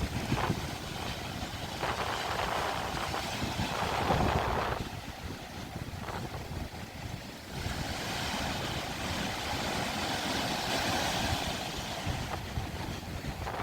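Ocean surf breaking and washing ashore, swelling twice in long washes, with wind buffeting the microphone.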